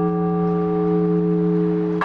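Large Orthodox church bell ringing on after a stroke, its deep hum and overtones holding steady, with the next stroke landing just at the end. The strokes come singly and evenly, a few seconds apart.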